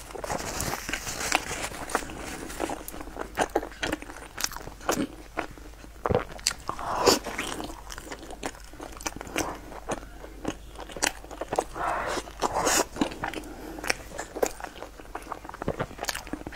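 Close-miked mouth sounds of a person biting and chewing bread: many short, irregular clicks and smacks.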